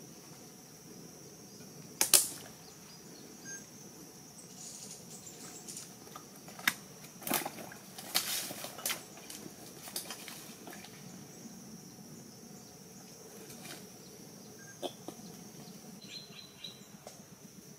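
Scattered clicks, snaps and rustles of someone moving through mangrove mud and handling plastic bags and a nylon net trap, with one sharp snap about two seconds in and a run of rustling clicks a few seconds later. A steady high-pitched insect drone runs underneath.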